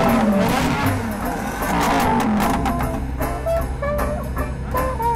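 Background guitar music with a drum beat, mixed with a car engine revving, its pitch falling and rising over the first couple of seconds.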